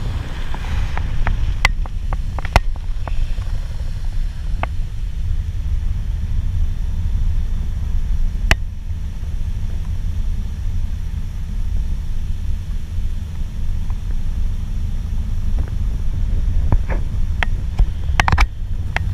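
Bass boat under way: a steady low rumble of its outboard motor and the wind on the microphone, with a few sharp clicks and knocks.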